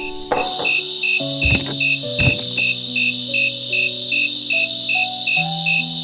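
Crickets chirping steadily, about two and a half chirps a second, over soft background music of slow held notes. Two low thumps sound about a second and a half and two seconds in.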